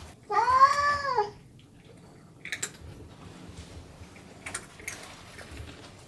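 A cat meows once: a single call about a second long that rises and falls in pitch. A few faint ticks follow.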